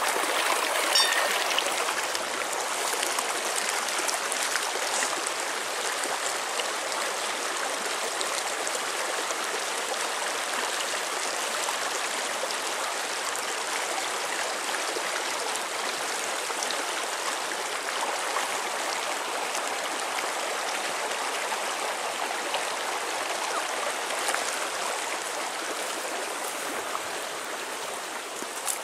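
Shallow creek rushing over rocks, a steady wash of running water that eases slightly near the end.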